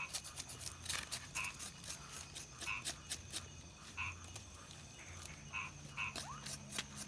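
Frogs calling, short croaks repeated every half second to a second or so, over scattered sharp clicks and a steady low hum.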